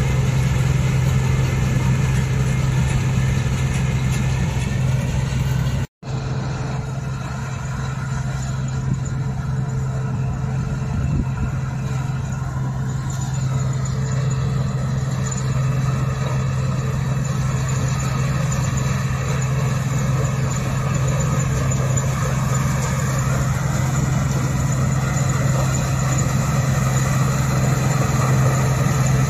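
A farm machine's diesel engine running steadily at one speed, a deep even drone. The sound cuts out for an instant about six seconds in, then carries on unchanged.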